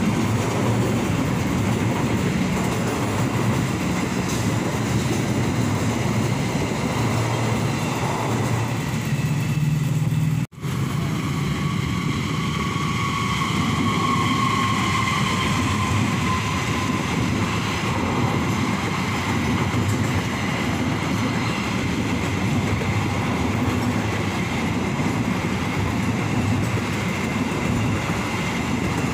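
Passenger trains running past on the rails with a steady rumble and wheel noise: first coaches hauled by a CC201 diesel-electric locomotive, then, after a sudden cut about ten seconds in, a train led by a CC206 diesel-electric locomotive and its coaches. Shortly after the cut, a thin high whine slides slightly down for a few seconds.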